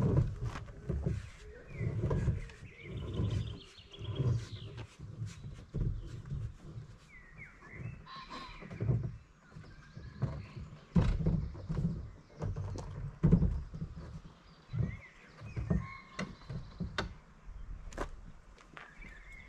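Irregular low thumps and knocks of a canoe hull being shifted and slid off a car's roof rack, mixed with footsteps.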